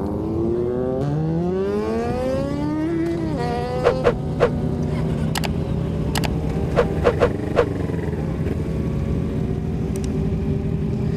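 Several motorcycle engines running together at idle, one revving up over the first three seconds and dropping back. A string of sharp, short cracks follows between about four and eight seconds in, with one more near the end.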